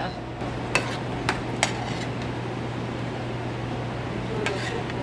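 A metal spoon stirring and scraping a thick cream sauce in a frying pan, clinking against the pan a few times about a second in and once near the end, over a steady low hum.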